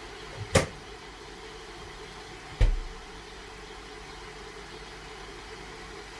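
A steady mechanical hum, with a sharp clink a little over half a second in and a heavier thump about two and a half seconds in.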